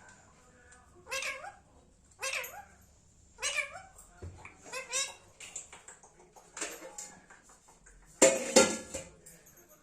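Indian ringneck parakeet calling in a string of about six short, pitch-bending calls a second or so apart, the loudest and harshest near the end.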